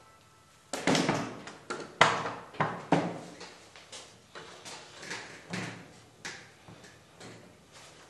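Cast-iron treadle stand of a Singer sewing machine being set down and fitted onto its wooden cabinet: a run of clunks and knocks of iron on wood, the loudest about two seconds in, then lighter knocks as it is shifted into place.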